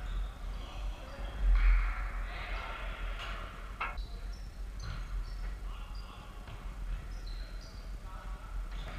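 Futsal play on a wooden sports-hall floor: many short high squeaks of players' shoes, the ball kicked sharply twice about three and four seconds in, and a loud burst of players' calls early on, all echoing in the hall.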